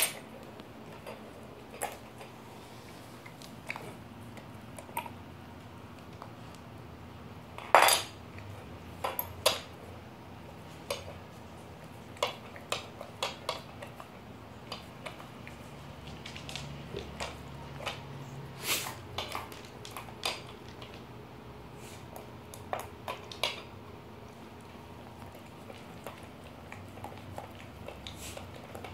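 A metal spoon clinking and scraping on a wooden floor as a dog licks it and pushes it about with its muzzle and paws. The clinks come irregularly, the loudest about eight seconds in.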